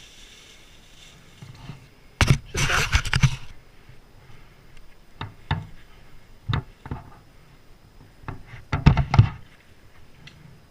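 Irregular knocks and clattering impacts: a quick run of them about two seconds in, a few single knocks in the middle, and another quick run near the end.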